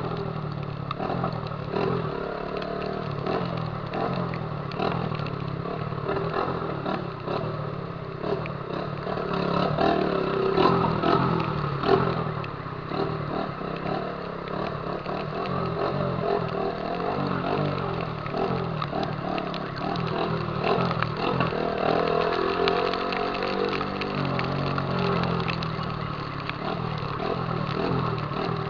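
A Honda CG 150 Titan's single-cylinder engine running through a loud 'viúva-negra' aftermarket exhaust while the bike is ridden, over a steady rushing noise. The engine pitch drops and climbs again a little after two-thirds of the way through.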